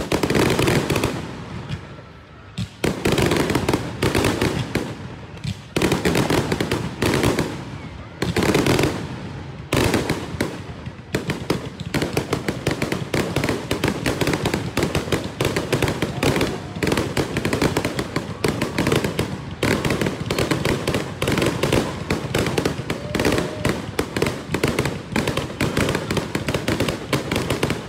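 Aerial fireworks going off: several heavy booms in the first ten seconds or so, then a dense run of rapid crackling reports, many a second.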